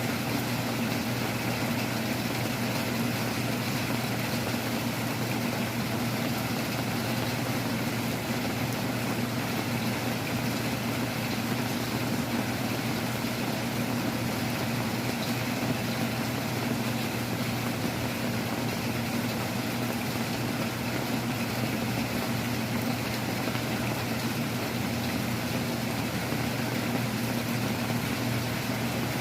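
Heavy rain falling steadily, with a constant low hum underneath.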